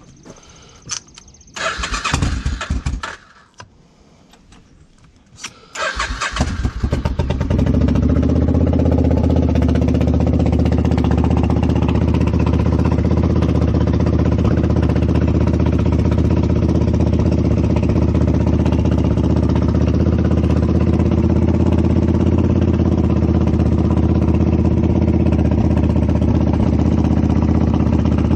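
Motorcycle engine being cranked and starting: a first attempt about two seconds in, then it catches around six seconds in and settles into a steady idle.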